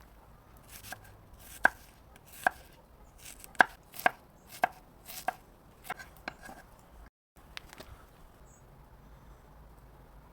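Knife chopping food on a cutting board: a dozen or so sharp, irregular knocks, a few more faintly just after, then it stops about eight seconds in.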